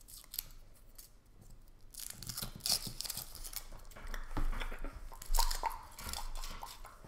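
Foil wrapper of a Kinder Surprise chocolate egg crinkling and tearing as it is peeled off by hand, in a run of close, sharp crackles that gets busier about two seconds in.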